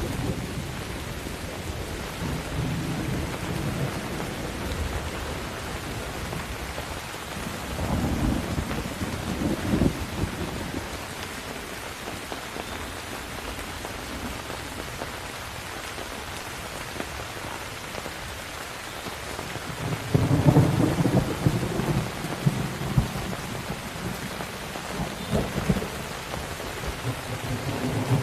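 Steady heavy rain with rolls of thunder: a low rumble about eight seconds in, and a louder, longer crackling roll of thunder starting about twenty seconds in.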